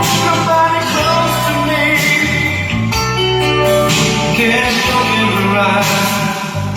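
A rock song with singing, guitar and a heavy bass line played loud through a hi-fi system: an Onkyo TX-SR607 receiver driving studio monitor speakers and a 15-inch subwoofer.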